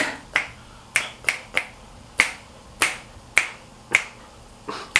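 Fingers snapping: about ten sharp snaps at roughly two a second, slightly uneven in rhythm.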